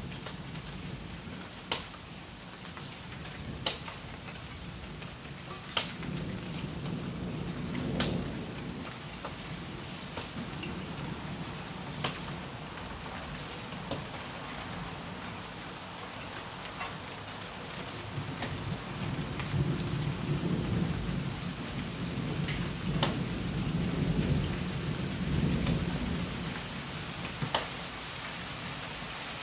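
Steady rain falling, with low rolling thunder that swells about a quarter of the way in and again for longer in the second half. Sharp ticks about every two seconds stand out above the rain as the loudest sounds.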